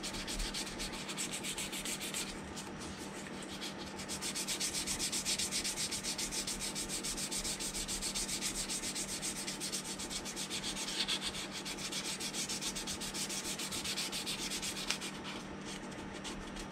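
Fine 320-grit sandpaper rubbed by hand over a plastic model hull and filled putty seams, a rapid run of scratchy back-and-forth strokes that lets up briefly about two seconds in and again near the end.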